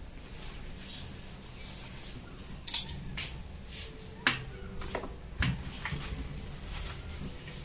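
Light rustling and brushing of fabric and fusible interfacing smoothed flat by hand on an ironing board, with a few brief crinkles, over a faint steady hum.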